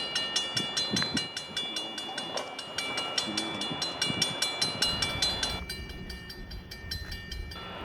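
Railroad crossing bell ringing rapidly, about four to five strikes a second, over a train's rumble; the bell stops about five and a half seconds in.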